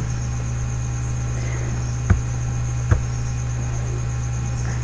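Steady electrical mains hum with a thin high whine over it, and two short mouse clicks a little under a second apart, about two seconds in.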